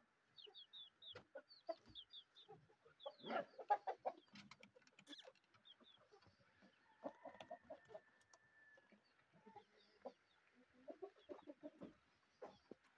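Aseel chickens clucking off and on, with quick, high chirps in between.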